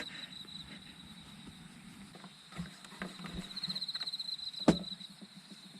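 Insects trilling in fast pulses at one high pitch, strongest in the second half, with a single sharp click about three quarters of the way through.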